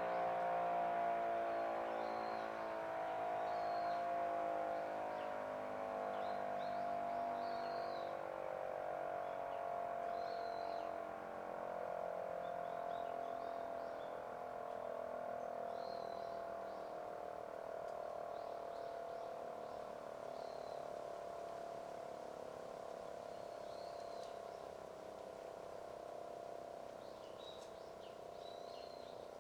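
Electric motor siren of a municipal outdoor warning system winding down: its single tone slowly falls in pitch and fades. Small birds chirp briefly now and then over it.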